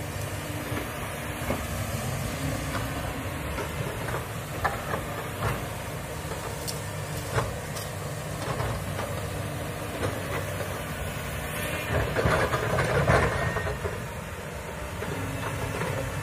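Komatsu hydraulic excavator's diesel engine running as the machine travels on its crawler tracks, with scattered clanks from the steel track links. It grows louder for a couple of seconds about twelve seconds in.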